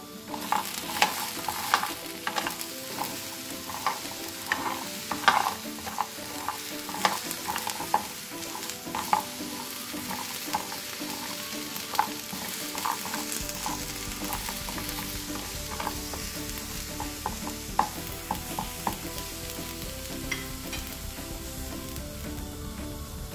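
Roasting chestnuts stirred in a frying pan with a metal utensil: the nuts knock and clatter against the pan and each other over a steady sizzling hiss. The knocking is busiest in the first half and thins out later.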